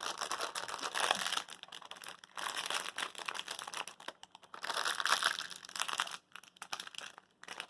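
Packaging crinkling and rustling in uneven bursts as small treat packets and the cardboard advent calendar are handled, with brief lulls about four seconds in and near the end.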